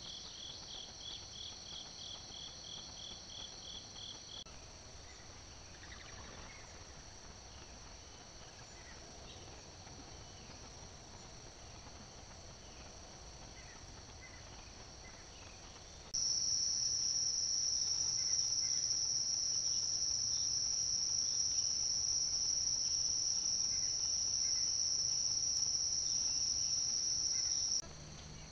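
Crickets and other insects trilling in a steady high chorus. For the first few seconds a chirp pulses about four times a second over it. From about halfway through, a much louder steady high-pitched trill takes over and cuts off abruptly near the end.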